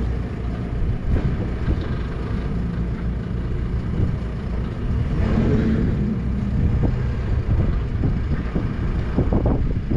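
Semi-truck's diesel engine idling with a steady low rumble, swelling briefly about halfway through, with a few knocks near the end.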